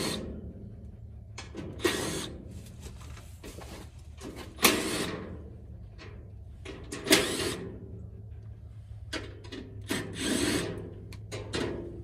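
Cordless drill backing screws out of a heat pump's top panel in about six short runs, spaced a couple of seconds apart, over a steady low hum.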